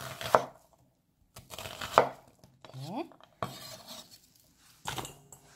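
A kitchen knife slicing through a peeled onion and knocking against a wooden cutting board, a handful of unhurried cuts a second or two apart.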